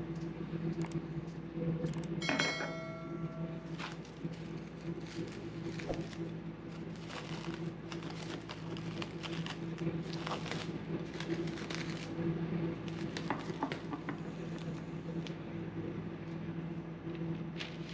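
Kitchen work sounds: utensils and dishes clicking and tapping over a steady electric hum, with one ringing clink about two and a half seconds in.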